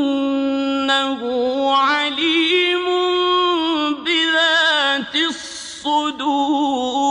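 A male reciter chanting the Quran in Arabic in the slow melodic style, holding long notes that waver in ornamented turns, with a short break about five seconds in before the next phrase.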